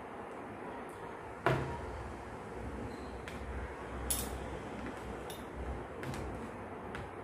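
Fork and spoon clinking and scraping against a plate: about half a dozen separate clinks, the loudest about a second and a half in, over a steady background hiss.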